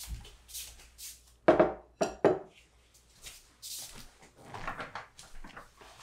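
A glass bowl and a drinking glass set down on a desk: three clunks close together, about one and a half to two and a half seconds in, among soft footsteps and rustling.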